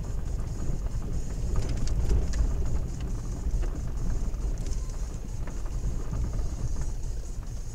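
Car driving slowly over a cracked, broken-up asphalt road, heard from inside the cabin: a steady low rumble of tyres and engine with scattered knocks and rattles as the wheels hit the cracks and holes, thickest about two seconds in.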